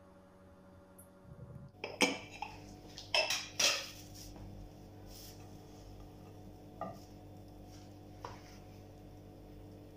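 A glass pan lid lifted off a frying pan and set down, with several sharp clattering knocks about two to four seconds in. Later, two lighter taps of a spatula against the nonstick pan.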